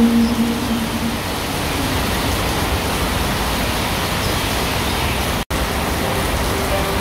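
A held note from the song dies away about a second in, then a steady, even roar of street traffic noise fills the rest, cut off for an instant near the end.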